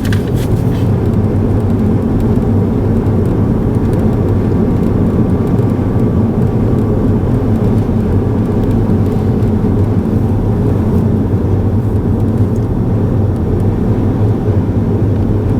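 A car driving at a steady speed, its road and engine noise heard from inside the cabin as a steady low rumble.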